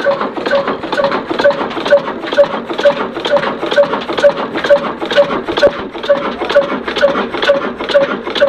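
Old black desi diesel engine, a Ruston-type stationary engine, running while driving a flour chakki. It makes an even, rhythmic clatter of about two and a half knocks a second.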